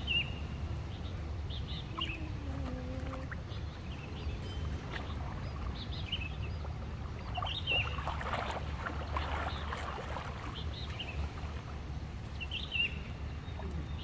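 Small birds chirping again and again over a steady low rumble, with water splashing from a person swimming in a pool from about eight to ten seconds in.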